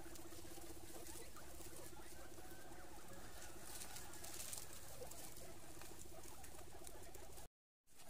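A group of guinea pigs squeaking and chittering, with scattered rustling and patter from their pen and a steady low pulsing hum beneath. The sound cuts out for a moment near the end.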